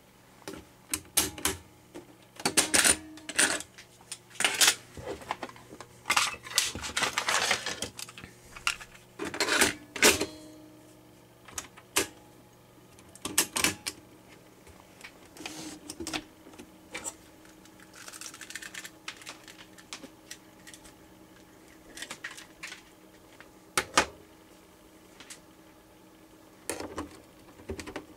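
Mechanical piano-key transport buttons on an Aristona AR9147A cassette deck, a rebadged Philips N2509, clicking and clunking as they are pressed and latch, with handling knocks. The clicks come irregularly, some in short clusters, over a faint steady hum.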